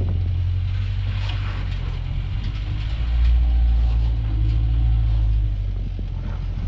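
Lifted four-wheel-drive truck crawling over rock at low speed: a steady low engine and drivetrain rumble that swells about three seconds in, with a few light knocks and crunches from the rocks.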